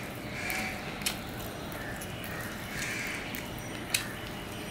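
Eating by hand: fingers working chicken curry on a steel plate, then food taken into the mouth, with soft wet mouth and handling sounds and two sharp clicks, the louder one near the end.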